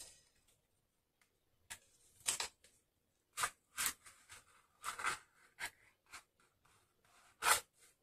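Cardstock panels of a handmade waterfall card flipping over one after another as the card is worked by hand. The result is a string of short papery flaps and rustles at irregular spacing, the loudest near the end.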